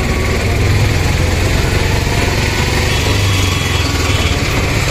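Steady running noise of a moving three-wheeled rickshaw heard from inside its open cabin: a continuous low rumble under road and traffic noise.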